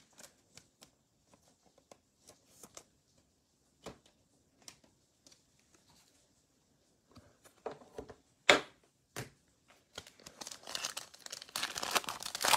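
Scattered light clicks and taps of trading cards and rigid plastic top loaders being handled, with one sharper click a little past the middle. From about ten seconds in, the crinkle and tear of a foil pack of 2021 Absolute football cards being ripped open.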